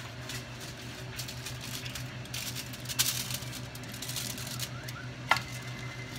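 Aluminium foil crinkling as a foil-covered dish is handled, with two sharp clinks against metal, the second leaving a short ring. A steady low hum runs underneath.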